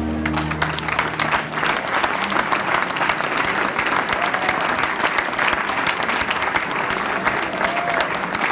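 A roomful of people applauding, a dense, steady patter of many hands clapping. The music of a just-ended projected video fades out in the first second or two.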